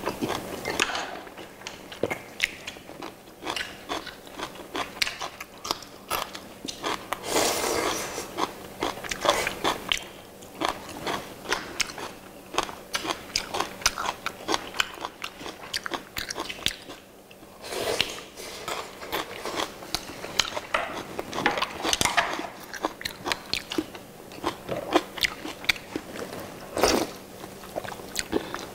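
Close-miked mukbang eating: chewing, biting and crunching on pumpkin-leaf wraps, grilled fish and seasoned vegetable side dishes. Chopsticks and a spoon click against bowls in an irregular stream of short clicks, with brief lulls.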